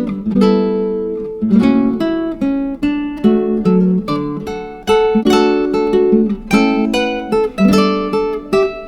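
Background music: a plucked acoustic guitar picking and strumming a melody in quick, evenly spaced notes.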